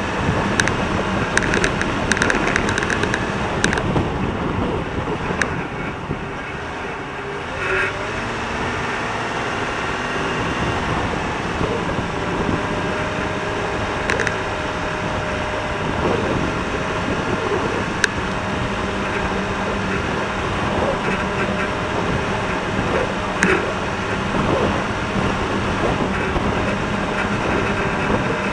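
Four-wheel drive's engine running steadily as it drives over soft, rutted beach sand, with scattered sharp knocks and rattles. The sound drops briefly around six seconds in and picks up again.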